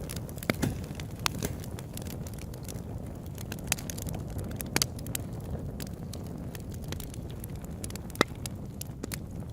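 Campfire crackling: irregular sharp pops and snaps of burning wood, a few standing out loudly, over a steady low rush.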